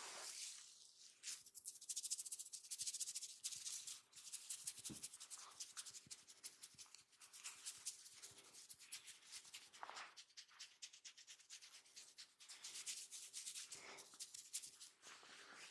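Hands rubbing and scratching through hair and scalp in a head massage, miked very close: a soft, dense crackling rustle, heavier about two seconds in and again near the end.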